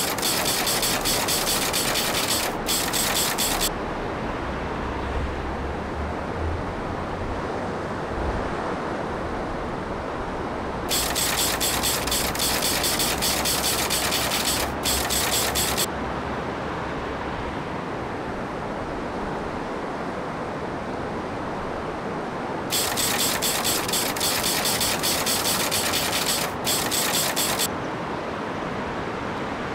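A fly reel's click-and-pawl ratchet clicking rapidly in three runs, each about four to five seconds long, over the steady sound of the river flowing.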